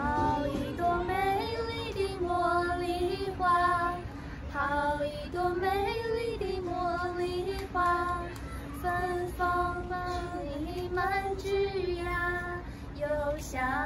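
A woman's voice singing a slow melody in held notes, each with a slight waver, with no instruments.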